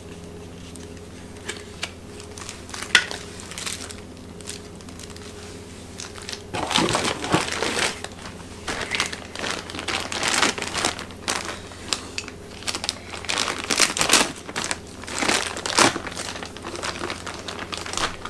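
Packaging being unwrapped and handled, crinkling in repeated bursts from about six seconds in, after a quieter start with only a steady low hum and a few light ticks.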